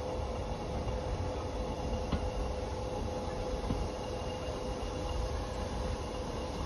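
Passenger train coaches running along the line, heard from on board: a steady low rumble with a steady whine held over it and a couple of faint knocks.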